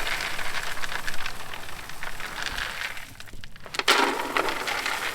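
Alfalfa feed pellets being handled, a crackling, rustling noise, with a sharp knock about four seconds in.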